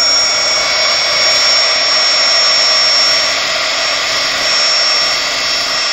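Craft heat gun running steadily, a loud rush of blown air with a constant high-pitched whine from its fan motor, as it warms the wax on a waxed canvas.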